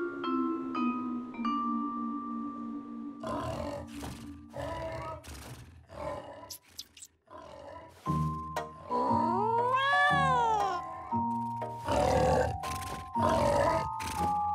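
Cartoon score and sound effects. A descending run of xylophone-like notes opens it, followed by a series of short noisy hits and, near the middle, a pitch that swoops up and back down over held notes, with growl-like character noises.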